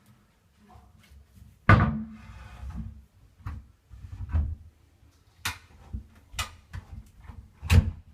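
Irregular knocks and clatters: about six sharp impacts, with the loudest about two seconds in and near the end, and a faint rattle between them.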